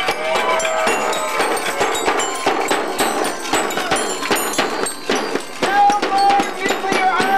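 A drum struck rapidly by hand, with clanking percussion hits, amid a crowd of shouting, calling voices.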